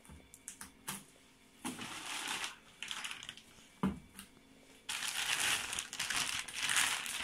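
Clear plastic accessories bag crinkling and rustling as it is handled, in short bouts at first with a few light clicks and a soft knock. From about five seconds in the crinkling runs continuously.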